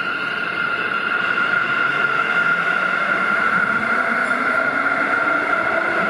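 Sendai Subway 2000 series linear-motor metro train pulling out of the station and gathering speed. A steady high whine runs throughout, and lower motor tones rise in pitch from about two seconds in as it accelerates and grows louder.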